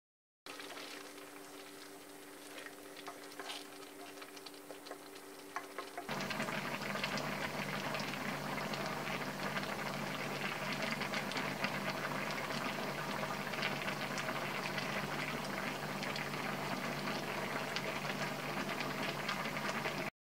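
Spicy shrimp broth boiling in a wok. It starts as quieter, scattered bubbling pops. About six seconds in it turns to louder, dense, steady bubbling over a low hum.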